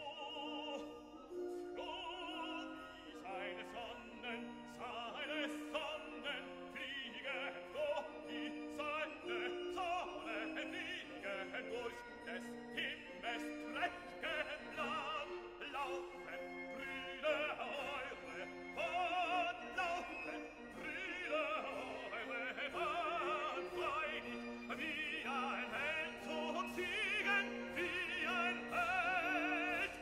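Classical background music: an operatic voice singing with wide vibrato over held orchestral accompaniment.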